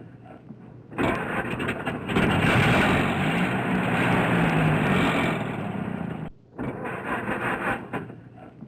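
A muscle car engine starting and revving with a loud exhaust note. The sound cuts off abruptly about six seconds in, and a second engine running is heard, fading near the end.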